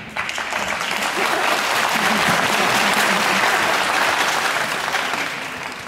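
An audience clapping: it starts suddenly, swells, and fades away near the end.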